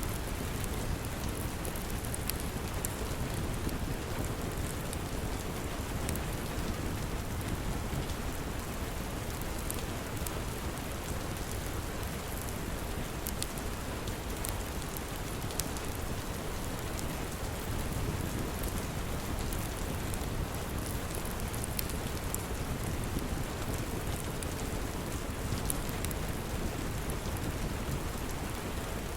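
Steady rain with sharp little crackles scattered through it from a log fire.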